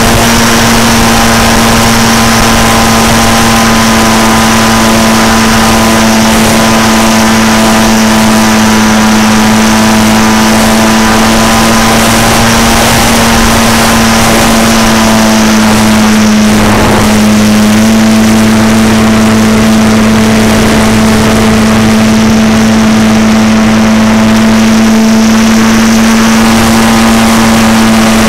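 ParkZone T-28's E-flite Power 10 brushless electric motor and propeller running loudly and steadily in flight, recorded from on board over a hiss of rushing air. The pitch dips briefly a little past halfway, then holds steady again.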